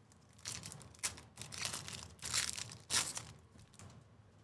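Plastic wrapper of a Panini Phoenix basketball hobby card pack being torn open and crinkled by hand, in several crackling bursts over about three seconds.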